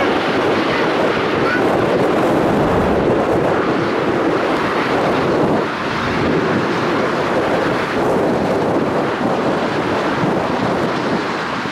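Four-engine Airbus A340 jet airliners on final approach and touchdown: a steady rush of jet noise heavily buffeted by wind on the microphone, dipping briefly about six seconds in.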